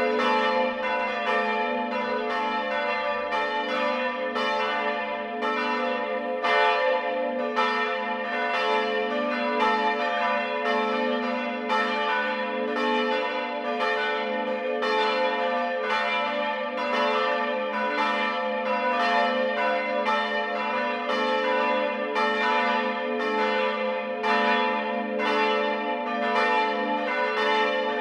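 Several church bells ringing together in a full peal. Their strokes overlap in an uneven pattern, a little under two a second, over the steady hum of their lingering tones.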